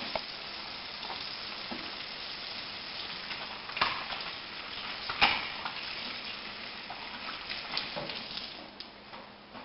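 Kitchen faucet running into a stainless steel sink while hands are rubbed and washed under the stream, a steady hiss of water with a couple of sharp knocks partway through. The water cuts off near the end.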